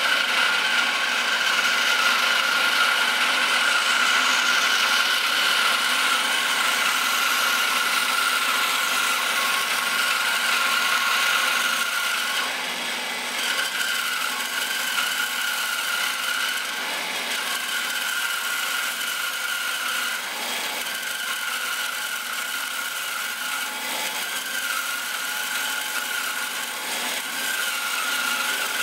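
Bandsaw running and ripping a thin strip off the edge of a wooden block, trimming it square, with a steady whine over the sound of the cut. It turns a little quieter about twelve seconds in.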